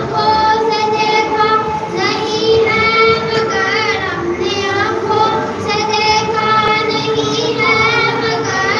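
A boy chanting a devotional recitation into a microphone, one voice holding long, wavering notes in phrases with short breaks.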